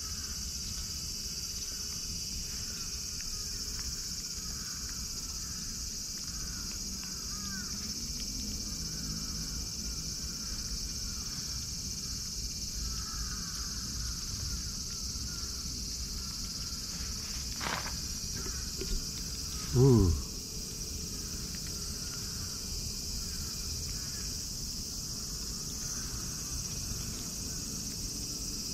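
Steady, high-pitched insect chorus. About two-thirds of the way through, a short voice-like sound falls in pitch; it is the loudest moment.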